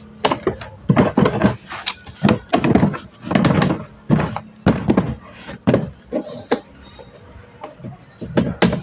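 Irregular knocks, clunks and scrapes of washing machine parts being handled and fitted, a quick uneven series of thuds.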